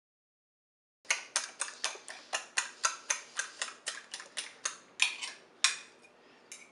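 Metal fork beating eggs in a ceramic bowl, the tines clicking against the bowl about four times a second. It starts about a second in and slows near the end.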